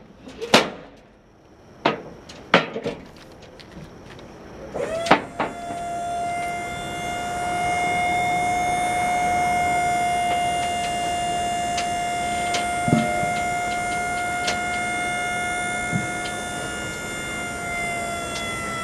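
Metal clanks as the aluminium platform of a Maxon tuck-away lift gate is folded over by hand. From about five seconds in, the lift gate's electric hydraulic pump runs with a steady whine while the gate raises and stows under the trailer, with a few light clicks on top.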